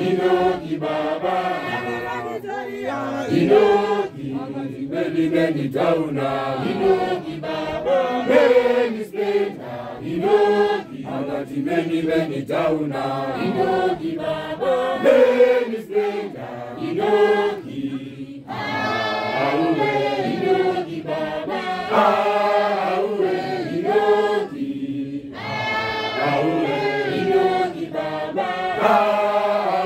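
Johane Masowe eChishanu apostolic congregation singing a hymn together in many voices.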